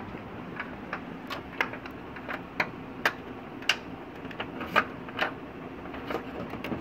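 A dozen or so sharp, irregularly spaced plastic clicks and taps as hands fit the side-door hinge of a Canon imageRUNNER 2420 photocopier back into place, over a faint steady hum.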